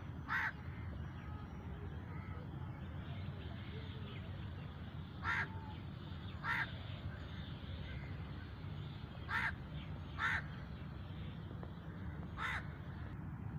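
Crow cawing: six short caws spaced a few seconds apart, over a steady low background noise.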